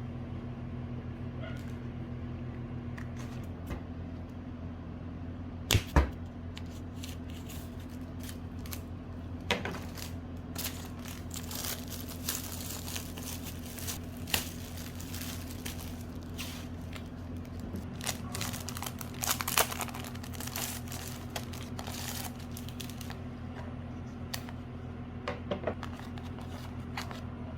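Small taps, clicks and short scraping rustles of objects being handled at close range, over a steady low hum. The handling grows busier partway through.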